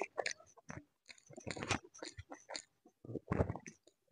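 Close-up chewing and wet mouth sounds of someone eating a soft steamed chicken bun (taipo), coming in short, irregular bursts with brief pauses.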